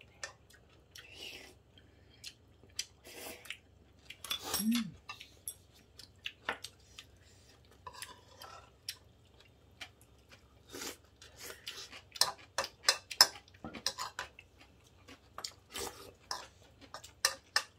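Eating utensils clicking and tapping against bowls and dishes during a meal, in sharp scattered taps that come thick and fast in the second half.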